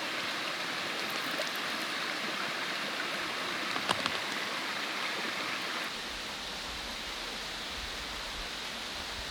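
Steady rushing of a mountain stream, with a few sharp clicks about four seconds in; from about six seconds a low rumble joins underneath.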